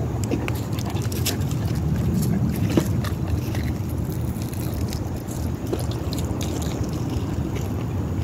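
Steady low outdoor rumble, such as wind on a phone microphone or passing traffic, with scattered light clicks and ticks of handling and footsteps.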